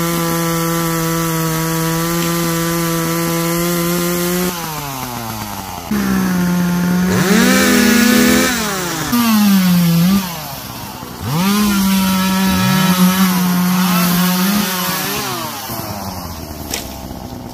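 Power saw cutting wood: the motor runs at a steady high speed, drops about four and a half seconds in, then speeds up again, its pitch sagging and rising several times as it cuts, and winds down near the end.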